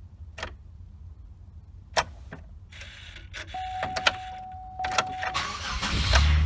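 Clicks of the key and ignition in a 2004 Chevrolet Impala, with a steady electronic tone for a second or two. Near the end the starter cranks and the engine catches and keeps running: the Passlock security has relearned the new ignition lock cylinder and now lets the car start.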